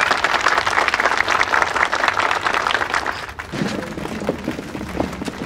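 Crowd of people applauding with many hands clapping, stopping about three and a half seconds in.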